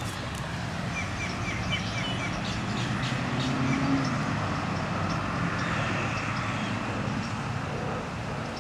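Steady low rumble of distant road traffic, with a bird's quick run of about six short high chirps about a second in.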